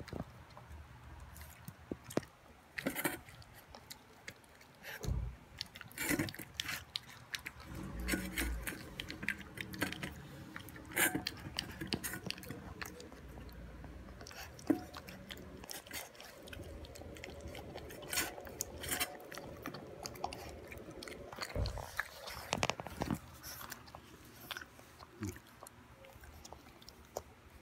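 Boston Terrier puppy chewing and crunching food from a stainless steel bowl, with many irregular short clicks and crackles.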